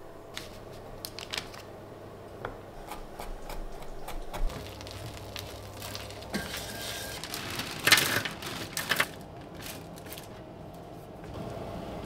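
A silicone spatula clicking and scraping around a plastic food-processor bowl. Then minced garlic goes into hot oil in a frying pan and sizzles, loudest in a burst about eight seconds in and settling to a steady sizzle near the end.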